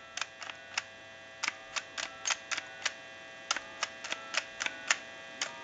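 Touch-tone keypad buttons of a Western Electric Trimline telephone pressed one after another, each press and release giving a short click, about seventeen clicks in all. The digits are being dialled into a line analyzer to check the keypad, over a faint steady hum.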